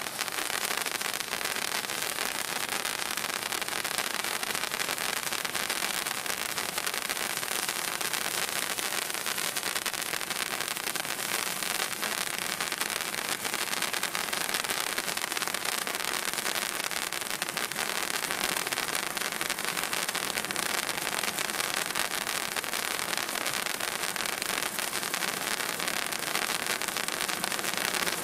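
Handheld pistol-shaped novelty firework fountain spraying a steady, hissing jet of silver sparks, with a fine crackling throughout.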